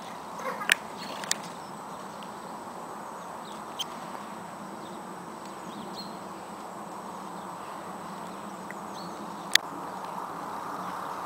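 Steady outdoor background noise with a few sharp clicks, the loudest about half a second in and one near the end, and a few faint short high chirps of small birds.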